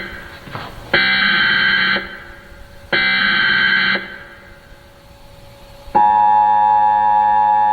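Emergency Alert System SAME header: two harsh, buzzing one-second data-tone bursts about two seconds apart. About six seconds in, the steady two-tone EAS attention signal starts, the alarm that precedes a broadcast tornado warning.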